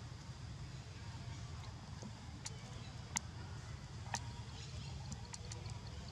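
A few scattered sharp clicks and snaps over a steady low outdoor rumble; the loudest click comes about three seconds in.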